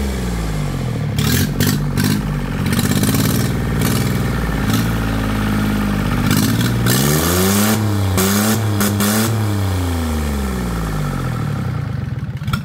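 An engine running, its pitch rising and falling several times, with some clatter.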